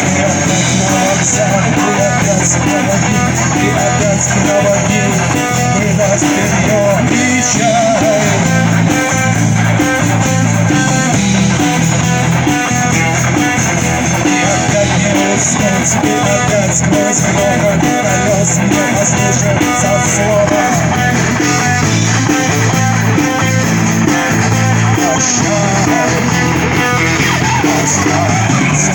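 Loud guitar-driven rock music with electric guitar, bass and drums keeping a steady beat.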